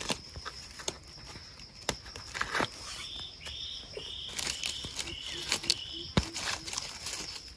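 Footsteps and rustling through forest undergrowth, over a steady high insect whine. From about three seconds in, an animal repeats a short chirping call about twice a second.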